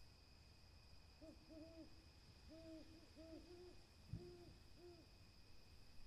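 An owl hooting faintly: about seven short hoots in small groups, starting about a second in. A low thump comes in the middle of the hoots.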